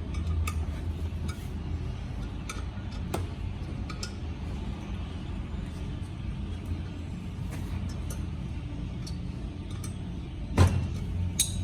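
Steady low mechanical hum with scattered light clicks and one sharper knock near the end.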